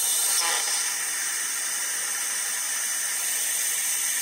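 Shop-air-powered vacuum coolant refill tool hissing steadily as compressed air rushes through it, drawing a vacuum on the car's cooling system before fresh coolant is pulled in.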